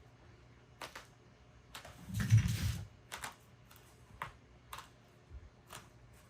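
A seam ripper cutting stitches in the apron, making irregular light clicks and snicks, with a louder handling rustle and thump of the apron on the worktable lasting under a second about two seconds in.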